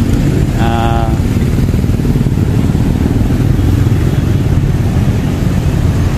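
Road traffic passing on a busy street: steady engine and tyre noise with motorcycles among it, and a brief pitched sound, like a horn, about a second in.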